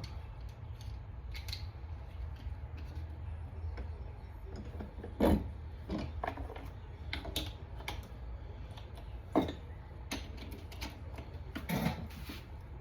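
Scattered clicks and knocks of metal suppressor parts being handled and repositioned: clamp shells and baffles shifted in the vise, over a steady low hum.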